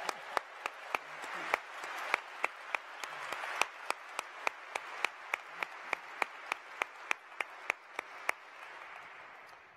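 Audience applauding, with one person's claps much louder than the rest at about three a second. The applause dies away near the end.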